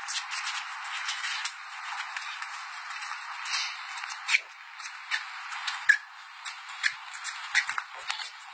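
Boxing sparring: irregular sharp slaps of padded gloves and the scuff of sneakers on concrete, over a steady hiss.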